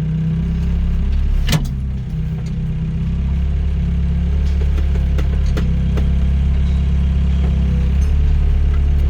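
Doosan DX55 mini excavator's diesel engine running steadily, with a sharp metallic knock about one and a half seconds in and a few lighter knocks later on.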